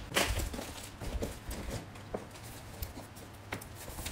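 Parcels being handled on a table: a short rustle at the start, then a few scattered light knocks as the cardboard box and the plastic-wrapped package are moved and set down.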